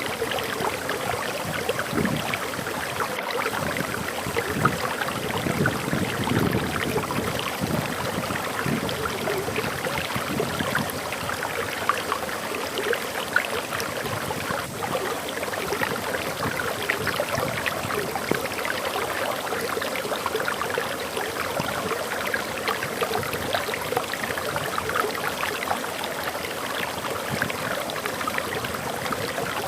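Small forest waterfall running steadily: water pouring and splashing with a continuous rushing hiss and fine, flickering splashes.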